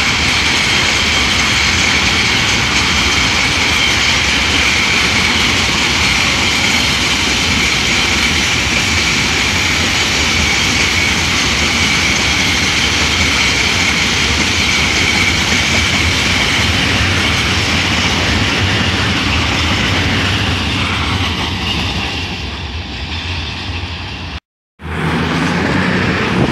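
Long container freight train rolling past at speed: a steady rumble and clatter of wagon wheels on the rails with a constant high-pitched ringing, easing off as the last wagons go by. After a short break, a CrossCountry Voyager diesel unit passes briefly near the end.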